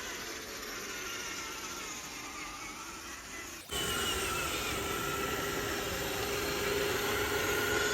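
Electric motor and gear whine of an RC crawler truck driving, with a sudden change about halfway through, after which the whine is louder and steadier.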